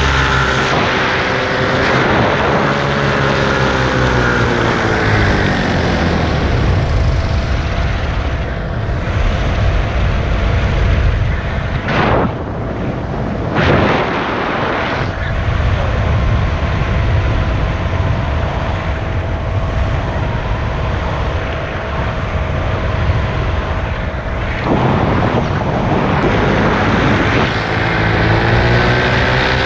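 Paramotor engine and propeller in flight: the throttle is eased off in the first few seconds and the engine pitch falls, then a long stretch of wind rushing over the microphone with the engine low underneath and a couple of sharp gusts. Near the end the engine is throttled back up and its pitch rises.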